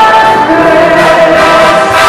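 Mixed choir of women and men singing long held notes in harmony, with live band accompaniment.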